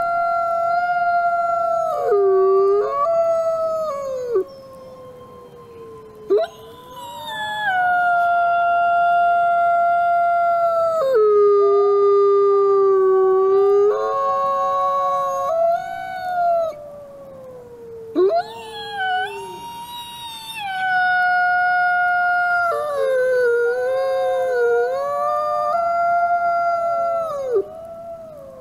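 Wolves howling: long, held howls that break and drop in pitch, with a second voice overlapping and gliding slowly downward beneath them, pausing briefly a few times.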